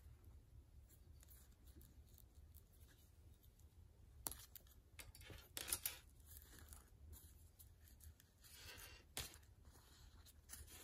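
Mostly near silence over a low hum, broken by a few brief scratchy rustles about four, six and nine seconds in: linen thread being drawn through the holes of paper pages and board during hand-sewn Coptic binding.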